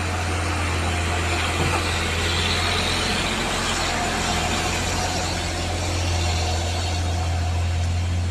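Pressure washer running steadily, with a low motor hum under the hiss of the water jet spraying a muddy toy truck clean.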